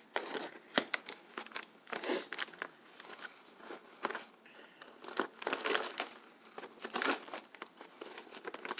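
Microwave popcorn bag crinkling and rustling in irregular bursts as it is tugged and pulled open.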